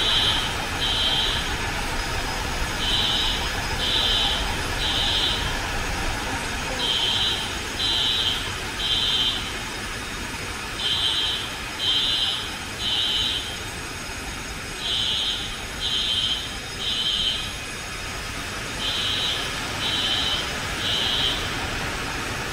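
Fire alarm sounder giving the temporal-three evacuation signal: groups of three high-pitched beeps, a new group every four seconds. Underneath is the steady rush of high-expansion foam generators discharging.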